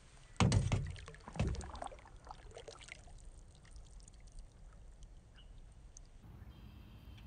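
Canoe paddle with a plastic blade pulling through calm water: two loud splashes about a second apart, then water dripping and trickling off the lifted blade and fading away.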